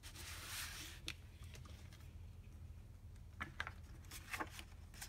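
Hardcover picture book being opened and its pages handled on a wooden table: a soft swish of the cover in the first second, then a few light paper clicks and taps.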